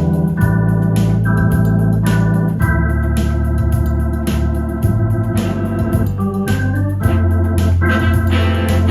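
Electronic organ playing sustained chords that change every second or so over a moving bass line, with a steady beat of light ticks.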